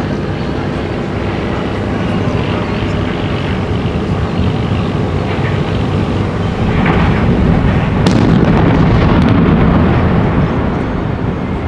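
Low rumbling roar of a demolition, swelling louder about seven seconds in and easing off near the end.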